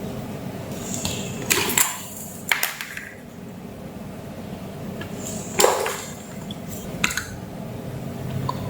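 Tools and small hard objects clinking and knocking on a workbench, a handful of separate clinks, over a steady low hum.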